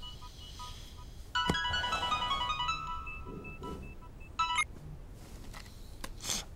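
Mobile phone ringtone playing a short, bright electronic tune about a second in, then a brief snatch of it near the middle before it stops as the phone is answered.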